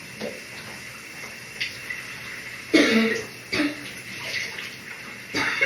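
A person's morning cough over the steady hiss of a running shower: one loud cough about halfway through, a shorter one right after it, and another fit of coughing starting near the end.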